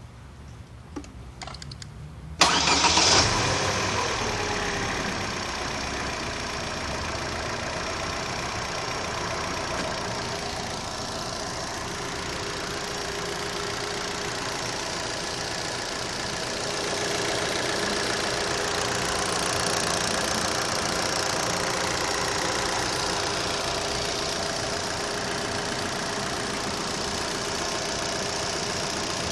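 Opel Z18XER 1.8-litre four-cylinder petrol engine starting about two seconds in, flaring briefly, then settling into a steady idle; the owner questions whether its running noise is normal.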